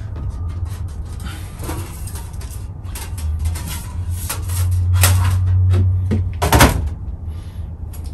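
Knocks and clatter of sheet-metal stove-pipe trim plates being handled and set down on a wooden bench, with one louder clank a little past halfway, over a steady low hum.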